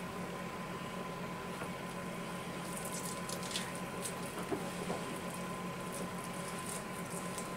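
Fingers pulling steamed squirrel meat off the bones by hand: faint wet squishing with scattered small clicks and ticks, over a steady low hum.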